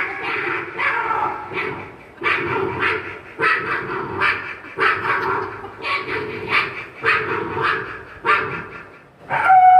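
A mimicry artist imitating a dog with his voice: a run of about a dozen short barks and yips, each under a second apart.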